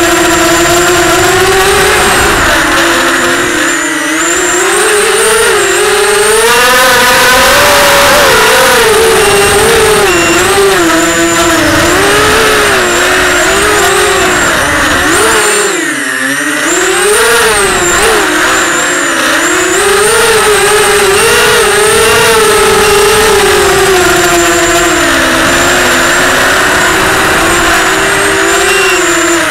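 Storm Racing Drone SRD280 quadcopter's motors and propellers buzzing, heard from the drone's onboard camera. The pitch wavers up and down constantly with the throttle, and the level dips briefly twice, about 4 and 16 seconds in.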